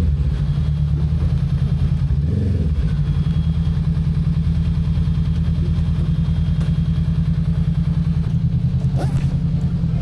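Motorcycle engine running steadily at low revs, with an even, pulsing beat.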